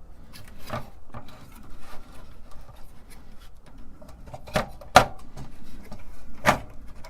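Hands handling a ribbon-cable connector and circuit board inside a computer case: rubbing and scattered small ticks, with a few sharp clicks and knocks, the loudest about five seconds in.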